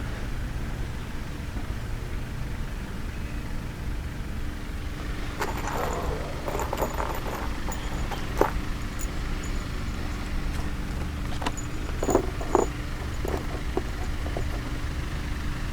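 Steady low rumble under the whole stretch. From about five seconds in, small metal bolts and hardware clink and rattle as they are handled, with a few sharper clicks.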